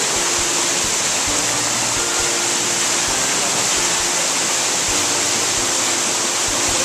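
Waterfall plunging into its pool, a steady, loud rush of falling water.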